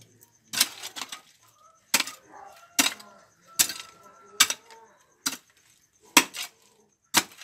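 Metal hoe blade chopping into stony, gravelly soil: a sharp clinking strike about once a second, eight in all, with soil and pebbles scraping between the strikes.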